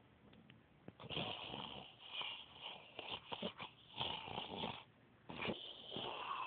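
A woman snoring: a long rasping snore starting about a second in, a short pause, then another snore beginning near the end.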